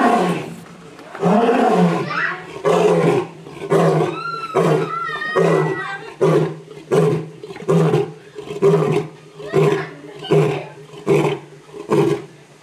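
Male lion roaring: two long full roars, then a run of shorter grunting roars that come faster and more evenly, about one every two-thirds of a second.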